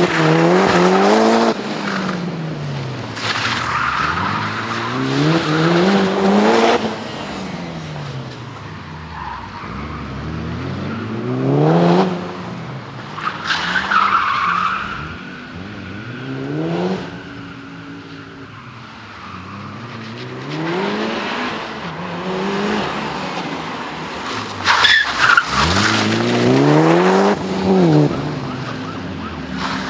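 Mitsubishi Lancer Evolution IX rally car's turbocharged four-cylinder engine revving hard and falling away over and over through gear changes and corners. Its tyres squeal as it slides, briefly about midway and again near the end.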